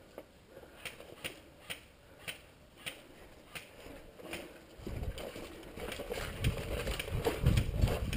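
Footsteps on dry, gravelly ground, first slow and spaced about half a second apart as sharp crunches. From about five seconds in, quicker steps, with wind and movement rumbling on a body-worn action camera's microphone.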